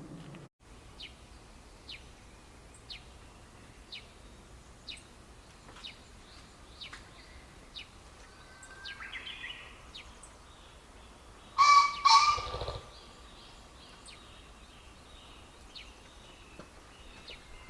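Male green pheasant crowing: one loud, harsh two-note call about twelve seconds in, with a brief low rumble under the second note, typical of the cock's wing-drumming. Before it, another bird gives short high chirps about once a second.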